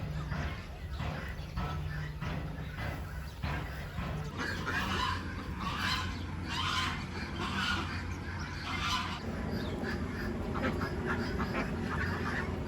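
Farm poultry calling: a run of repeated calls about half a second apart, from about four to nine seconds in, over a steady low hum.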